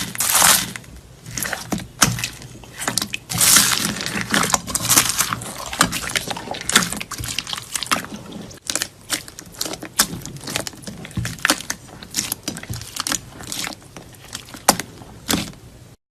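Slime being squeezed and worked by hand: a steady run of wet squelches, crackles and small pops, with louder squishes every second or so. It stops suddenly near the end.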